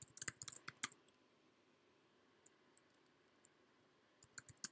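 Quiet clicking of computer keyboard keys as a word is typed: a quick run of about eight keystrokes in the first second, then a few more clicks near the end.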